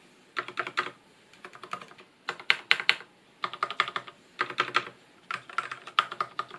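Keys of a Durgod Taurus K320 mechanical keyboard with Cherry MX Black linear switches, struck in short quick bursts of several strokes, about one burst a second. The stabilized keys are being pressed to show that their stabilizer rattle is well suppressed.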